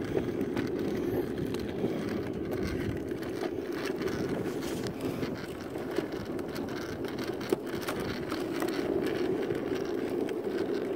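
Small wheels of a three-wheeled kick scooter rolling over rough asphalt: a steady rumble with scattered light clicks.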